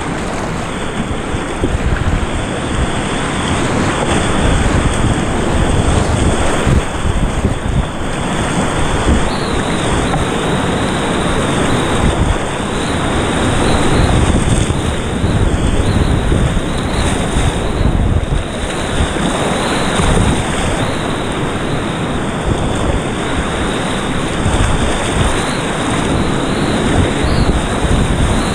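Whitewater rapids rushing and splashing around a kayak: a loud, steady roar of churning water, with wind buffeting the microphone.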